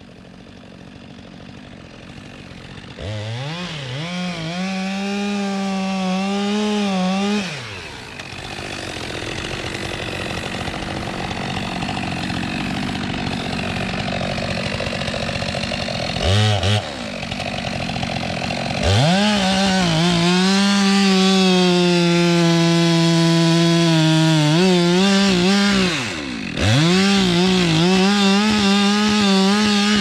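Gasoline chainsaw bucking a large log on the ground. It revs up about three seconds in and drops back, revs briefly again, then runs at full throttle through the cut from about two-thirds of the way in, its pitch dipping briefly twice near the end as the chain loads in the wood.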